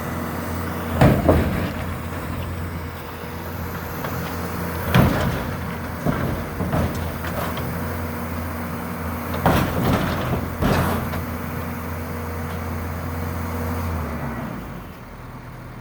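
Bobcat skid steer engine running steadily under loud metal bangs and crunches, about five big ones spread through, as a grinder mixer is broken up for scrap. The engine drops away near the end.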